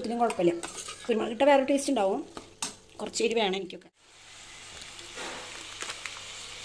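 A person's voice over the first four seconds, then, after a brief cut, beef roast frying in a stainless steel kadai with a steady sizzle while a steel spoon stirs it.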